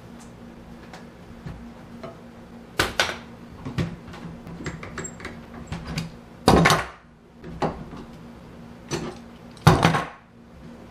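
Bar clamps with wooden screw handles being loosened and taken off a freshly glued Windsor chair, along with the mallet lifted off the seat: about half a dozen clanks and knocks of metal and wood with quick clicks between them, the loudest about two-thirds in and near the end.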